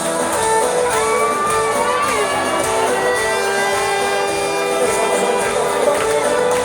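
Live band music played loud in a club, with held and gliding melody notes, and a crowd shouting and cheering over it.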